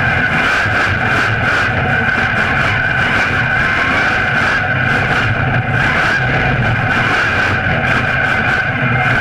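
Monster truck engine running loud and steady, heard close up from a camera mounted on the truck's chassis beside the front wheel, while the truck drives on dirt.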